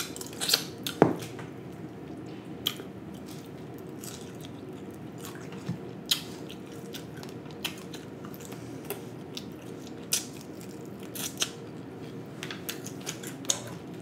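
Close-miked eating of whole fried snapper by hand: scattered wet mouth smacks and clicks as the fish is chewed, about a dozen spread irregularly, over a steady low hiss.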